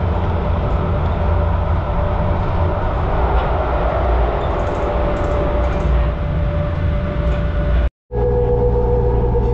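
Train running with a steady low rumble and a steady whine. The sound cuts out briefly about eight seconds in and then resumes with a slightly lower whine.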